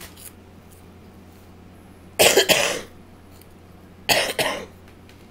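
A person coughing twice, two short loud coughs about two seconds apart.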